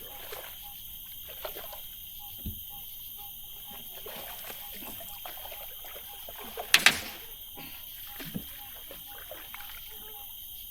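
Night chorus of crickets and other insects chirping steadily, with small water splashes and light knocks; a short sharp clatter about seven seconds in is the loudest sound.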